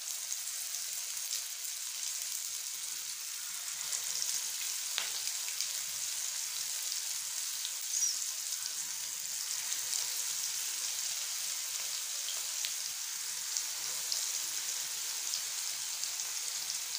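Beef shami kababs shallow-frying in hot oil in a pan: a steady sizzle with a few faint pops.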